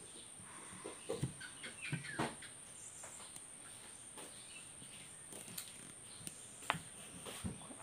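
A fork clicking and scraping on a plate as food is picked up, a few scattered taps over a faint steady high-pitched whine, with a couple of brief chirps about two seconds in.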